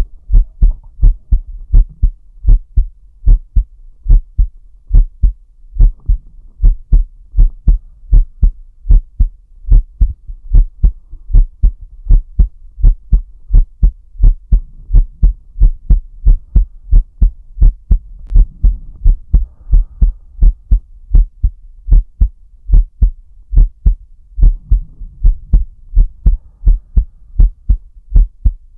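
A man's heartbeat recorded close up: a steady run of deep, low lub-dub beats. Slow breaths can be heard faintly underneath a few times.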